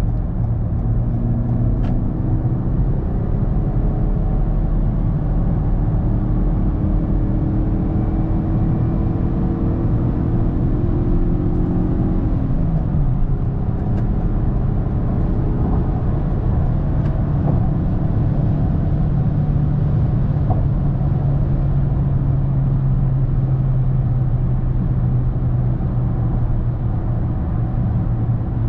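Toyota Corolla 1.6 Valvematic four-cylinder petrol engine heard from inside the cabin at motorway speed, with steady tyre and road noise. The engine note climbs slowly in pitch for the first dozen seconds, drops about halfway through, then holds steady.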